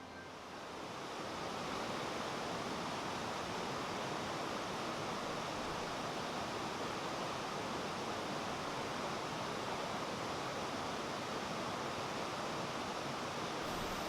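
Valley stream flowing steadily, an even rushing of water that fades in over the first couple of seconds.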